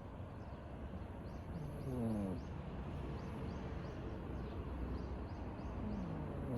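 A sleeping cat snoring: two snores about four seconds apart, each a short tone falling in pitch, the second starting near the end. Faint high chirping runs in the background.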